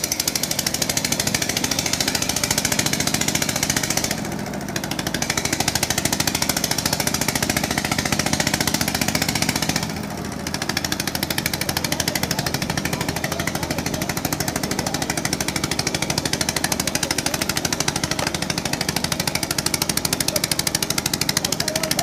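Long-tail boat engine running steadily with a rapid, even beat as it drives a steel ferry. Its level dips briefly twice, about four and ten seconds in.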